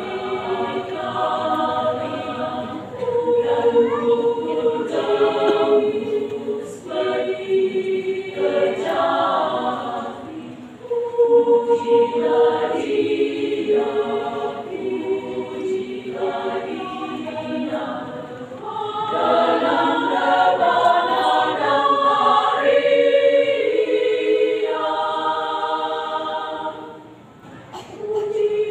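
Women's church choir singing a cappella in several parts, with a short break between phrases near the end.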